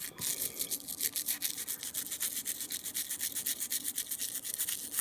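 A small stiff brush scrubbed rapidly back and forth, about eight quick strokes a second, scouring old paint off a diecast toy car part.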